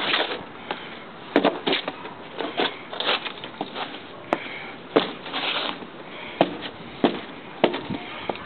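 Black leather boots stomping on and kicking a pair of tan Timberland boots on concrete: a string of irregular sharp knocks and thuds, with scuffs in between.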